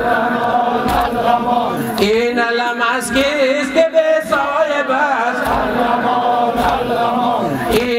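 Men chanting a Shia mourning lament (noha) in Persian, a lead voice with the group, over the rhythmic strokes of chest-beating (sineh-zani) about once a second.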